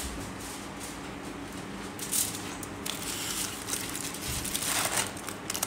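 Aluminium foil on a baking tray crinkling as the tray of baked biscuits is handled, with a couple of soft knocks.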